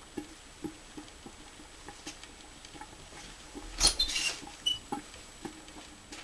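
Soft footsteps, then about four seconds in the metal lever handle of a glazed door is turned and the latch clatters as the door opens, followed by a brief squeak.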